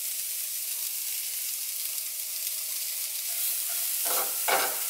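Diced shallots and garlic sizzling steadily in butter spread in a hot frying pan, starting to sweat. Near the end a silicone spatula scrapes through them twice.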